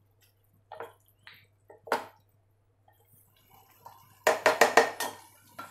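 A wooden spatula stirring a wet mushroom and onion mixture in a pot. It makes a few soft scrapes and squelches, then a quick run of louder scrapes and knocks against the pot about four seconds in.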